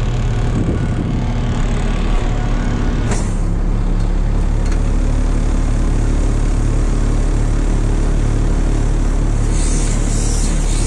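Tow truck's engine running steadily, its tone shifting about three seconds in, with a hiss coming in near the end.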